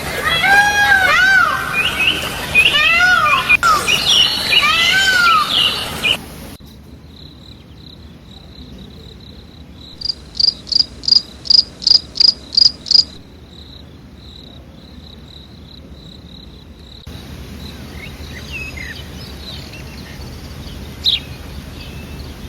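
Animal calls in three sections. First comes a series of loud, repeated calls that rise and fall in pitch. Then there is a steady, high, insect-like tone, with a quick run of about nine sharp chirps. Faint bird chirps follow near the end.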